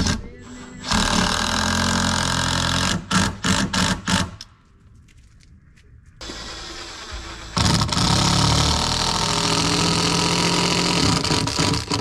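Cordless power driver sinking long deck screws into a 4x6 timber: two long steady runs of the motor, each finished with a few short quick trigger pulses as the screw is snugged home.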